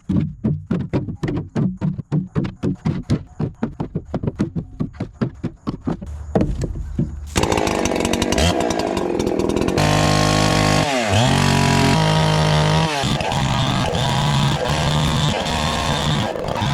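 NEO-TEC NH872 71cc two-stroke chainsaw, a Husqvarna 372 XP clone. It pops in rapid, uneven beats for about seven seconds, then runs at high revs, its pitch dipping and recovering a few seconds later.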